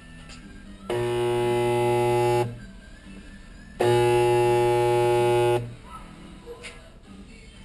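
Spot welder buzzing twice as it welds a rail onto an AK-47 receiver. Each steady electrical buzz lasts about one and a half seconds, with about a second between them.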